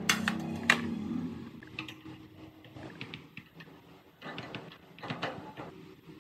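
Metal parts of a cut-off saw being handled and fitted on a workbench: two sharp clicks over a brief low hum within the first second, then lighter knocks and clicks as the saw arm is seated on the base's pivot bracket.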